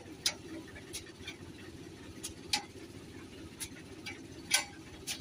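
Spade and hoe blades striking and scraping wet sand and grit while digging out a stuck tractor's wheels: about eight sharp, irregular clicks and scrapes, the loudest about four and a half seconds in, over a low steady rumble.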